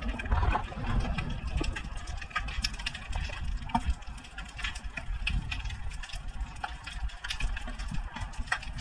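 Underwater ambience recorded by an action camera in its housing: a steady low rumble of moving water with scattered sharp clicks and crackles throughout.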